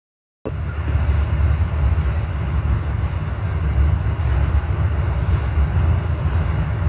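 A passing train rumbling steadily. It sets in abruptly about half a second in, after a moment of dead silence.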